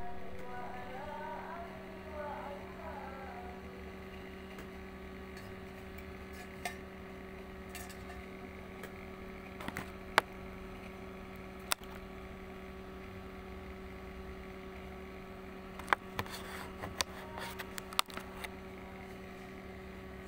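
Steady electrical mains hum, with scattered sharp clicks and taps from work on an opened car ECU on the bench. The clicks cluster near the end.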